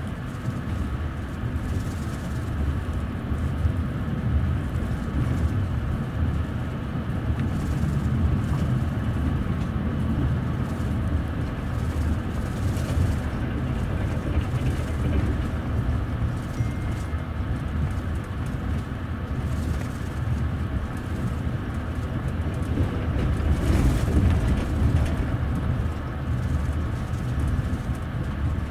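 Passenger train running at speed, heard from inside the upper deck of a double-decker coach: a steady low rumble of wheels on rail and running gear with a few faint knocks, swelling briefly near the end.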